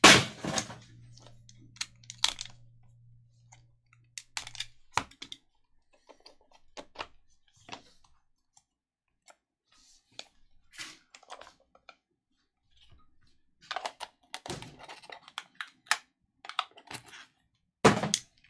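Hands handling a small cardboard trading-card box and the cards taken out of it. Irregular light clicks, taps and rustles, with a sharp knock right at the start and another near the end.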